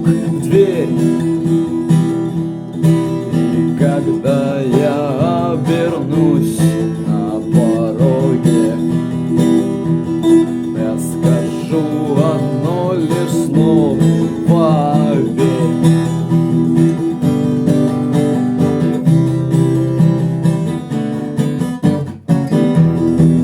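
Acoustic guitar strumming chords, with a wavering melody line above it in two stretches; the playing drops out for a moment about 22 seconds in.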